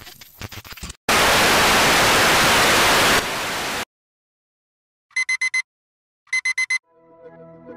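Crackling digital-glitch noise, then a loud burst of TV-style static hiss for about three seconds that cuts off suddenly. After a pause come two quick groups of four electronic beeps, and soft ambient music starts near the end.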